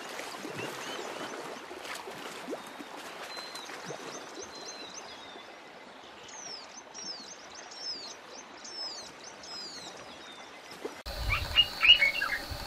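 Wild birds calling over and over with short, quick downward-sweeping chirps above a soft, even rush of water. About eleven seconds in the sound cuts to a different ambience: a low wind rumble, a steady high insect buzz and a sudden loud cluster of short calls.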